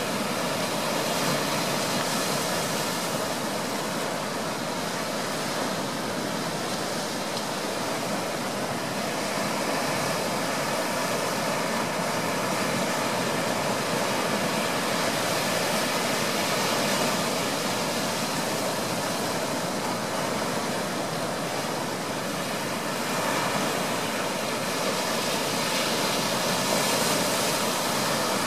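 Surf washing and breaking in the shallows on a sandy beach: a steady rushing that swells and eases slowly.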